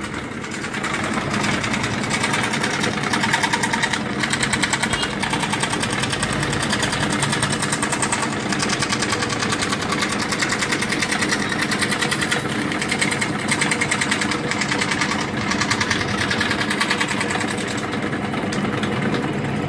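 Scroll saw running steadily, its blade stroking rapidly up and down as it cuts a round hole in a stiff board.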